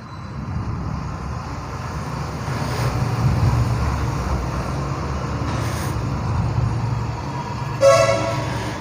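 Low, steady rumble of road traffic going by, swelling about half a second in. A brief, loud pitched blast sounds near the end.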